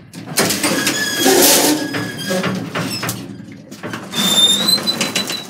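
Old lift's collapsible metal lattice gates being slid along their tracks, rattling and scraping with high metallic squeals, in two long pulls.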